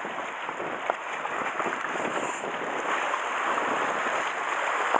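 Sea water washing against the shore rocks, with wind on the microphone, as a steady noisy wash. Two light clicks sound about one and two seconds in.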